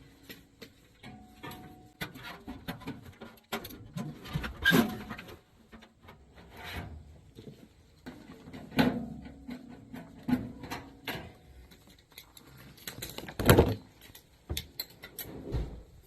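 Irregular clicks, taps and rattles of parts and tools being handled while an air-conditioning unit is reassembled, with louder knocks about 5, 9 and 13 seconds in.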